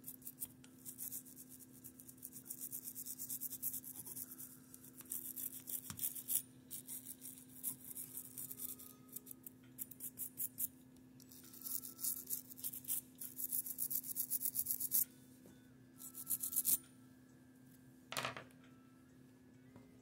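Quick scrubbing strokes on a 1941 Argus AA camera as it is cleaned, several strokes a second in runs with short pauses. They stop about fifteen seconds in, come back for a brief run, and end with one short rub near the end.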